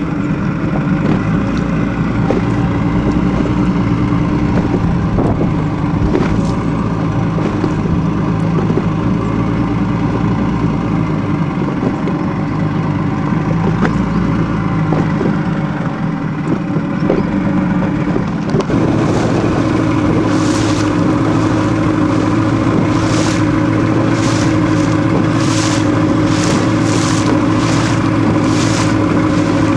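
A boat engine running steadily. About 19 seconds in its note shifts, and from then on short hissing bursts come roughly once a second.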